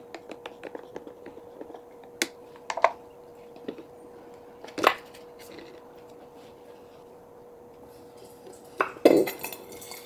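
Stirrer clicking and tapping against the plastic chamber of an AeroPress as the coffee is stirred, then a few separate knocks as the plunger is handled and fitted back on, with a louder clatter near the end. A faint steady hum runs underneath.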